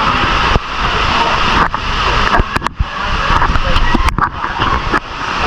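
Indistinct background voices over a constant loud rumble and hiss, the general din of a busy waterpark.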